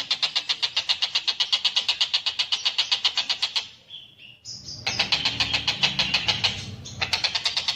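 Tengkek buto kingfisher calling in a fast, even run of sharp notes, about eight a second. It breaks off about three and a half seconds in for a few faint short notes. Then comes about two seconds of calling with a low rumble under it, and the rapid series starts again near the end.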